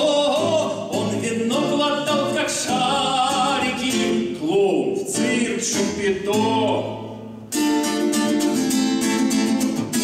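Man singing a bard song to his own acoustic guitar, the voice gliding over long held notes. A little after 7 seconds the voice drops out, and the guitar comes in strongly with even strummed chords.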